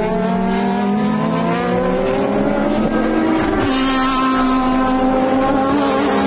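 GT race car engines at full throttle, the note rising steadily as they accelerate, then switching to a lower, steady note a little past halfway and holding there.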